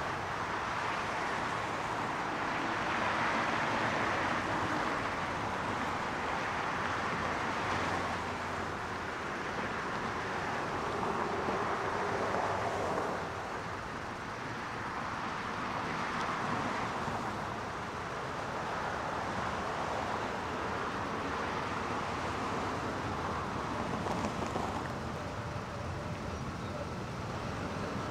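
Steady outdoor rushing noise of passing road vehicles, swelling and easing every few seconds.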